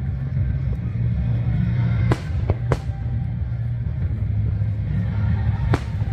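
Fireworks display with show music playing under a steady low rumble, and three sharp firework bangs: two about two seconds in, close together, and one near the end.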